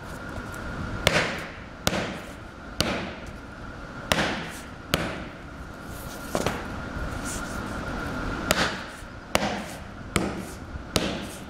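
Hammer blows on a cut sole piece laid over a glued EVA rubber sheet, pressing the pasted layers together: about ten sharp knocks, roughly one a second, with a short pause in the middle. Between the blows, the sheet rustles as it is handled.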